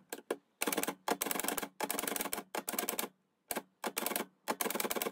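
Vintage Rheinmetall manual typewriter being typed on: quick clacks of the typebars striking in short runs, with brief pauses between the runs.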